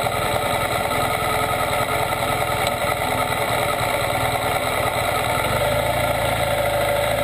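2014 BMW R1200GS boxer-twin engine running at low revs as the motorcycle rolls slowly, heard close up from a camera mounted low on the crash bar. The sound is steady throughout.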